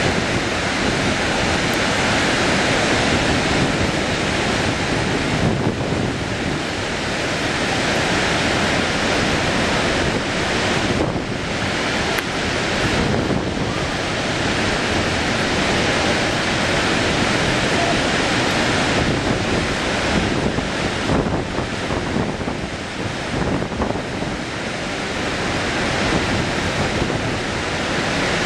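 Steady, loud rush of Horseshoe Falls at Niagara, a very large waterfall pouring into the churning river below, with wind buffeting the microphone.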